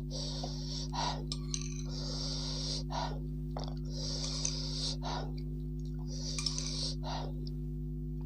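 A person breathing hard in and out through the mouth with hissing breaths about every two seconds, the way one does while eating chilli-hot food. A steady low electrical hum runs underneath.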